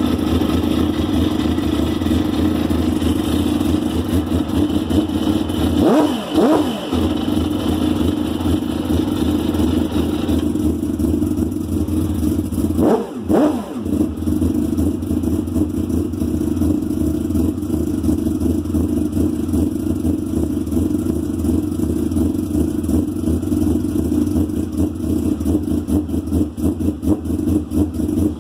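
Race car engine idling fast just after a cold start, steady, with its pitch swinging briefly twice, about six and thirteen seconds in.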